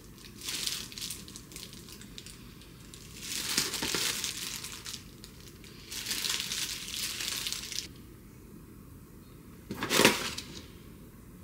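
Disposable plastic gloves and a plastic tray of raw chicken breasts crinkling and rustling in three spells of a second or two as the chicken is handled. Near the end comes one short, louder crackle as a stiff plastic salt pouch is picked up.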